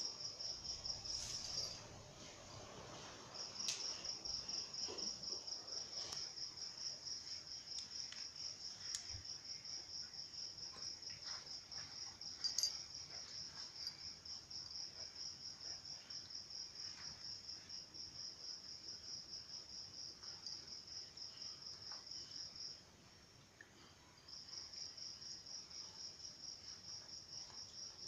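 Insect trilling steadily in a high, fast-pulsing tone, breaking off for about a second and a half near the end. Faint scattered clicks and one sharper tap about halfway through.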